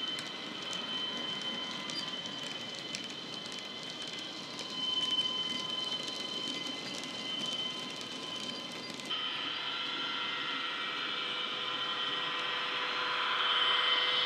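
Model freight wagons clicking and rattling over the rail joints, under the steady drone of the Sudexpress Euro Dual model's diesel engine sound and cooling fan, played by its ESU DCC sound decoder through the speaker. About nine seconds in the sound changes abruptly, and the engine sound grows louder near the end as the locomotive draws closer.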